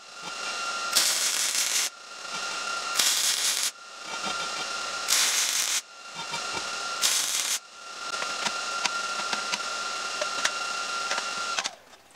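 Wire-feed (MIG) welder welding steel in short runs: a crackling hiss with a steady high whine under it, breaking off and restarting about every two seconds, then one longer run that stops near the end.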